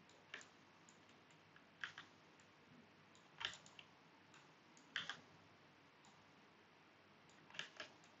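Faint clicks of a computer mouse and keyboard, about five short clusters, often two clicks close together, spaced roughly a second and a half apart.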